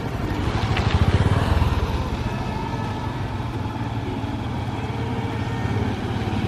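A motor vehicle engine running close by: a steady low rumble with an even pulsing, a little louder about a second in.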